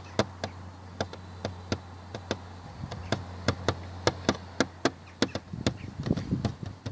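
Irregular sharp clicks or taps, about three a second, over a steady low hum.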